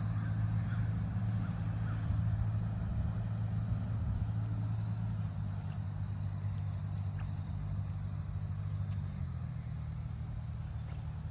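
Steady low hum of an idling engine, its pitch settling slightly lower about nine seconds in.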